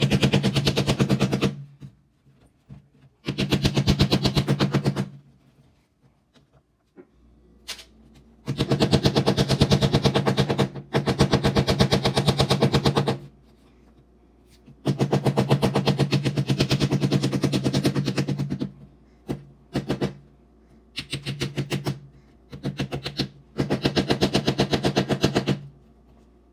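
Repeated bursts of rapid, even mechanical rattling, each lasting one to three seconds with short pauses between, shorter bursts near the end.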